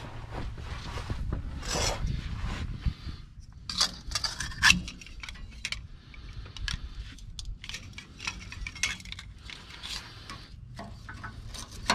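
Evil Energy stainless steel butt-joint exhaust band clamp halves clinking and rattling as they are handled and fitted around a broken 2.25-inch exhaust pipe: a scatter of small metal clicks, the loudest about four to five seconds in.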